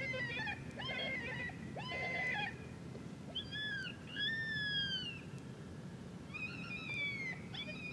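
Predator call sounds for coyotes: three short, harsh pitched cries followed by several drawn-out wails that fall in pitch.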